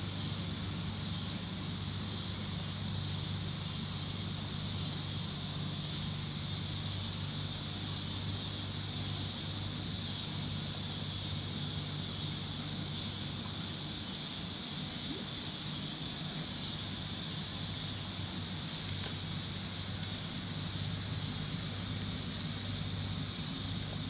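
A steady, high chorus of insects over a low, even hum.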